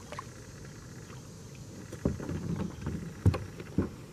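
Several dull knocks and bumps on a plastic kayak while a small bullhead catfish on the line is reeled in. The knocks start about two seconds in, and the loudest comes a little after three seconds.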